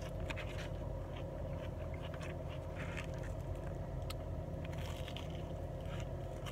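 Close-up eating sounds: crunchy bites and chewing of breaded fried whitefish, with light scrapes and clicks of a plastic fork against a foam food container. Underneath is a steady low hum in the car cabin.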